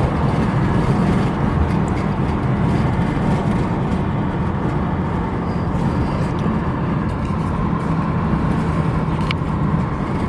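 Ford Mustang GT's V8 engine running steadily while driving slowly in traffic, with road noise, and one short tick about nine seconds in.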